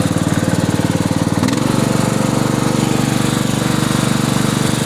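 Riding lawn mower engine running with a rapid, even putter as the mower drives slowly; about a second and a half in, the engine note shifts slightly higher and stays there.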